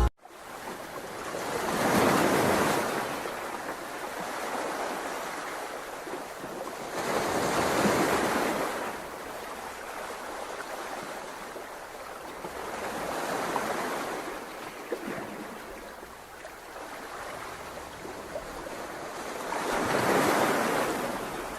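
Ocean waves washing ashore, swelling and fading in four surges about six seconds apart.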